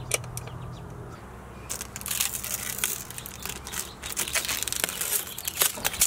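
A faint low hum with a few light clicks, then, from about two seconds in, crinkling and rustling with scattered clicks as the plastic protective film and the fridge lid are handled.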